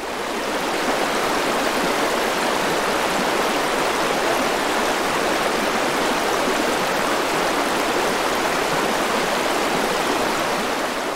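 Steady, even rushing of water, like a fast stream or waterfall, with no distinct splashes; it begins to fade near the end.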